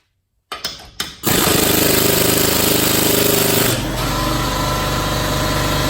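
A few sharp clicks, then about a second in the Harbor Freight Earthquake 3/8-inch air impact ratchet starts hammering continuously and loudly against a lug nut torqued to 75 ft-lb, its sound shifting partway through. The tool fails to break the nut loose.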